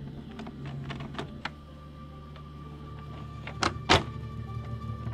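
Benelli TnT 135's single-cylinder engine running at idle on its test start after a valve adjustment, a steady low hum that turns rougher and more pulsing about three seconds in. Sharp clicks sound about three and a half and four seconds in.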